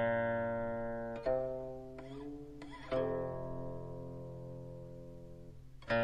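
Background music of a plucked string instrument playing slow single notes, each left to ring and fade before the next is plucked, about every one and a half seconds.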